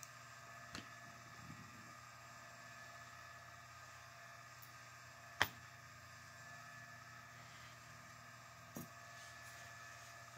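A few isolated small clicks and taps from handling the lock and its small metal parts: one less than a second in, a louder one about five seconds in, and one near the end. Under them runs a faint steady electrical hum.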